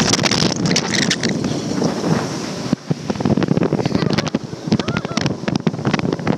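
Motorboat running underway, with wind buffeting the microphone and repeated sharp knocks.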